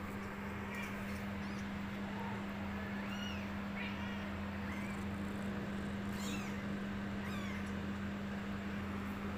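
Newborn kittens mewing: a string of short, thin, high-pitched mews, roughly one every second, over a steady low hum.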